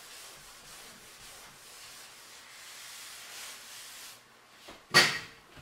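Chalkboard eraser wiping across a chalkboard: a steady rubbing hiss that stops about four seconds in. A single sharp knock follows about five seconds in.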